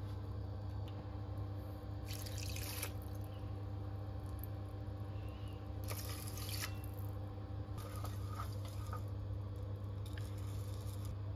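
Water poured from a small measuring cup onto raw rice in a rice cooker's inner pot, in two short pours, then a wooden spatula stirring the wet rice. A steady low hum runs underneath.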